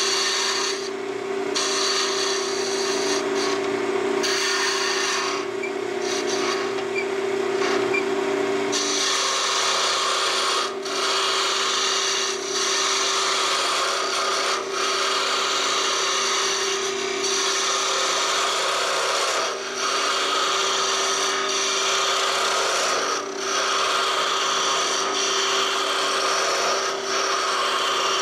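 Wood lathe running with a Vega duplicator's cutter shaving a thin walnut spindle: a steady motor hum under continuous cutting noise. The cutter is fed slowly by hand, and the cutting noise dips briefly every few seconds in the later part.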